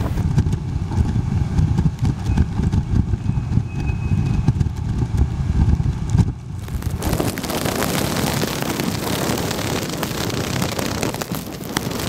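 Typhoon winds buffeting the microphone in heavy rain: a loud, gusty low rumble. A little past six seconds in it changes to a steady hiss of storm waves breaking and wind-driven spray.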